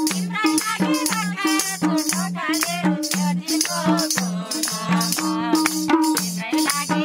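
Madal drum played in a steady folk rhythm, its low and high strokes alternating, with hands clapping along on every beat and voices over it.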